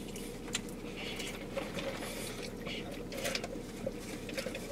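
Quiet eating sounds in a car cabin: chewing, with scattered small clicks and rustles of food wrappers and a drink cup, over a steady low hum.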